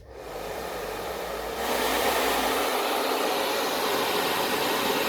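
Repaired hair dryer starting up and running, its fan blowing a steady rush of air that steps louder about a second and a half in; it is blowing well after the repair.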